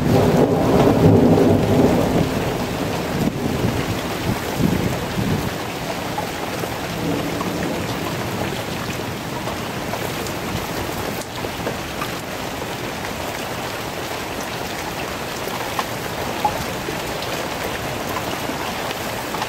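Steady rain falling, with a low rumble of thunder dying away over the first couple of seconds.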